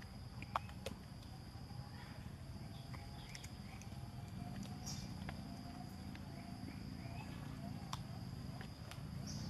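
Outdoor ambience: a steady high-pitched buzz over a low rumble, with a few sharp clicks scattered through.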